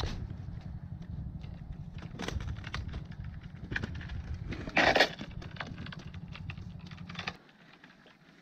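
Handling noise from a body-worn camera as the angler moves over the rocks with a fishing pole: scattered clicks and rustles, with one louder scrape about five seconds in. Under it runs a steady low rumble that cuts off suddenly a little after seven seconds.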